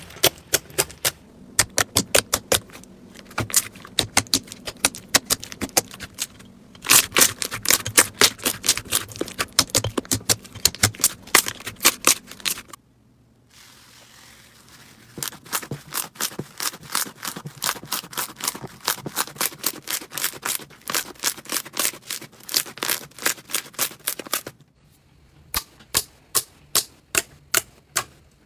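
Slime being squeezed and pressed by hand, giving off rapid runs of sharp crackling clicks and pops, typical of crunchy slime. The clicking breaks off briefly twice.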